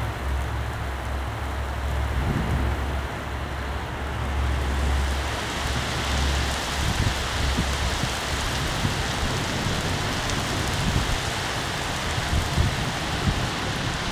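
Heavy rain pouring in a windstorm, with a low rumble under it for the first six seconds or so. The rain grows louder and hissier about four seconds in, and in the second half gusts of wind buffet the microphone in irregular low thuds.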